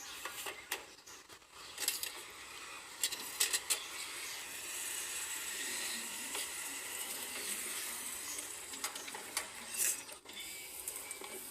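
Electrolux washing machine in use: a run of sharp clicks and knocks, then a steady hiss for about six seconds that stops near the end.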